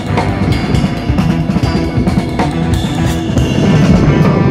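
Background rock music with a steady drum beat and guitar.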